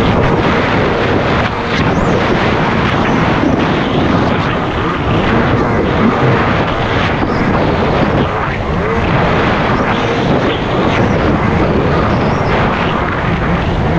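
Jet ski running under way: a loud, steady engine drone under a dense rushing noise.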